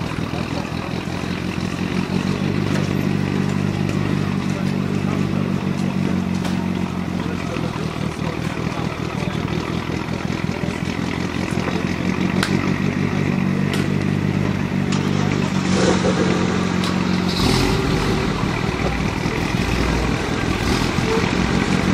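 A car engine idling steadily, its hum growing louder twice for a few seconds, with a deeper low rumble joining near the end.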